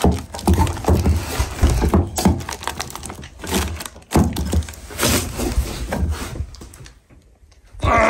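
Child-resistant plastic cap on a metal tin of Danish oil being twisted and pressed one-handed: irregular clicking and knocking of the cap and tin, with handling rumble, as the cap refuses to come off.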